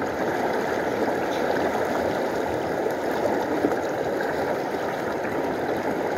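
Shallow, fast-flowing river rushing steadily, with a few small splashes from someone wading in it.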